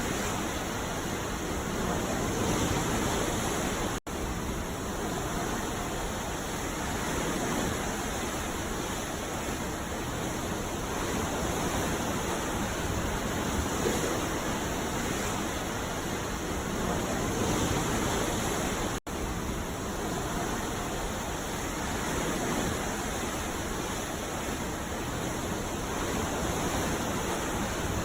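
Ocean surf washing on a beach: a steady rush of water that swells gently every few seconds. The sound drops out for an instant twice.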